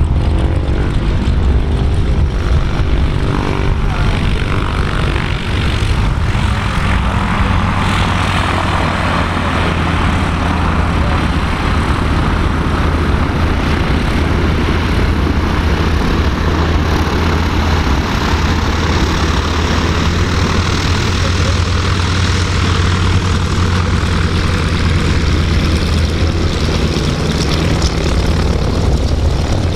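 Boeing 747-8F freighter's four GEnx turbofan engines as the jet lands and rolls out on the runway: a steady heavy rumble, with a louder rushing noise building about a quarter of the way in and holding.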